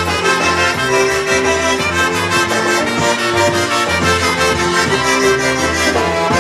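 Live band playing an oberek, a fast Polish dance tune in triple time: two trumpets play the melody over concertina, accordion and electric bass, with a quick, steady beat.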